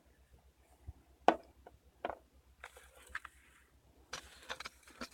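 Small cosmetic products and their packaging being handled: a few light clicks and knocks, then light rustling and crinkling near the end.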